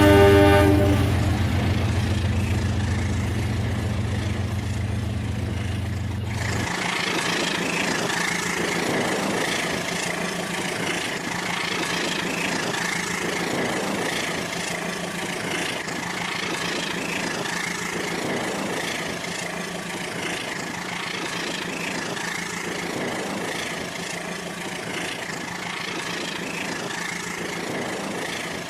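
Battery-powered Rail King toy train: its horn sound effect fades out in the first second over a low engine-rumble effect, which cuts off about six and a half seconds in. After that the train's motor and wheels run steadily on the toy track, with a faint repeating beat.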